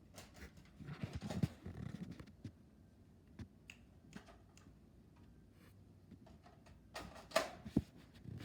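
Scattered clicks and knocks of objects being handled: a busy cluster about a second in, and a few louder knocks near the end.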